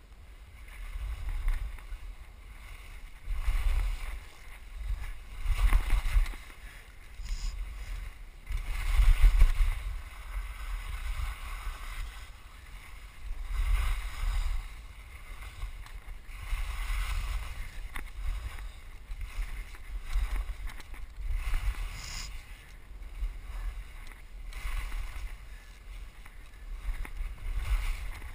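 Wind buffeting a moving body-worn camera's microphone with a steady low rumble, and skis scraping over packed, chopped snow in surges of hiss on each turn, about every three to four seconds.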